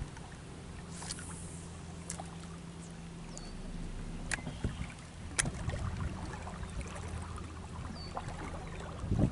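Boat motor running with a steady low hum, with scattered light clicks and a louder bump near the end.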